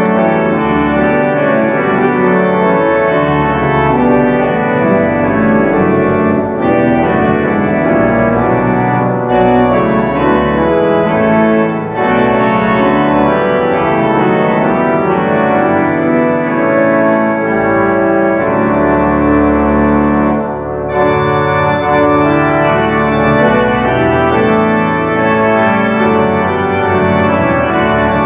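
Organ playing a hymn tune in full sustained chords, with deep pedal bass notes under the hands. The music breaks off briefly between phrases, about four times.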